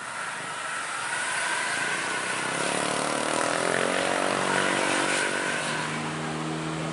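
Passing road traffic: after a fading rush of noise at the start, a vehicle engine comes in about two and a half seconds in, rising a little in pitch and then running steadily as it approaches.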